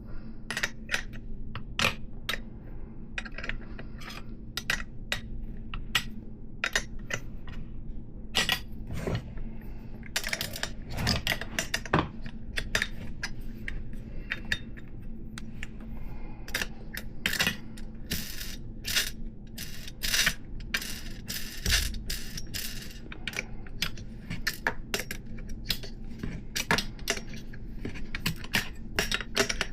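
Wrench working a threaded 3/8" steel BMX axle through the fork's dropout adapter: many irregular sharp metallic clicks and clinks of steel on steel, with a steady low hum underneath.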